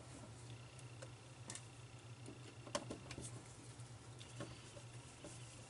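Faint scattered clicks and taps of hands working on a CD-ROM drive's sheet-metal bottom cover and its screws, over a steady low hum. The sharpest click comes just under three seconds in.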